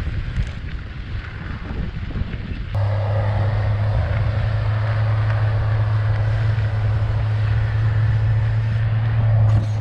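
Wind rushing over the microphone while cycling. About three seconds in, a heavy machine's engine cuts in suddenly: a steady low hum with a higher drone above it, running on unchanged.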